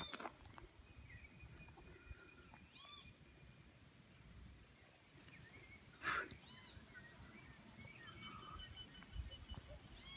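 Faint outdoor background with short high-pitched animal calls every few seconds, and one brief sharp noise about six seconds in.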